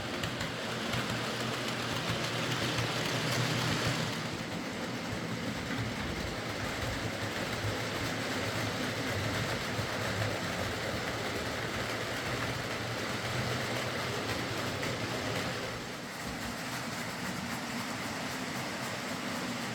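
Bachmann Class 47 OO gauge model locomotive running on track, its motor and gears whirring steadily with the wheels rolling on the rails. The sound changes about four seconds in and again near the end.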